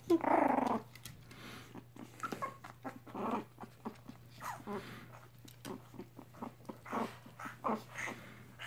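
Three-week-old Chihuahua-mix puppies giving short whimpers and little growls. The loudest comes right at the start, followed by scattered brief ones.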